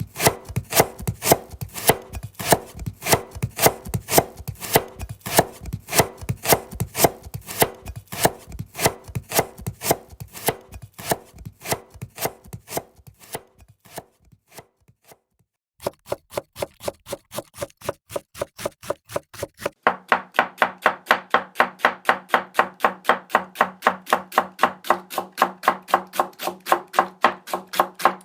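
Houchou (Japanese kitchen knife) chopping ingredients on a cutting board in a quick, steady rhythm of sharp knocks, about three to four a second. The chopping slows and pauses briefly just past the middle, then resumes. From about two-thirds of the way in the strokes come louder and a little faster, with a different tone.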